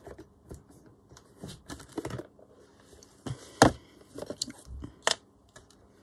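Craft supplies being handled on a cutting mat: paper rustling and scattered small clicks and knocks as washi tape rolls and a plastic storage tub are moved about, the sharpest knocks about three and a half and five seconds in.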